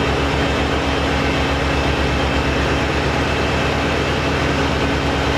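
Heavy engine idling steadily, with a low, even throb of about nine beats a second.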